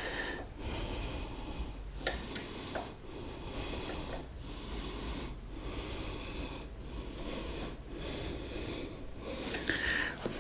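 A man breathing hard and rhythmically, about one breath a second, while straining to tighten a nut with a wrench, with a couple of faint metal clicks from the tool about two seconds in.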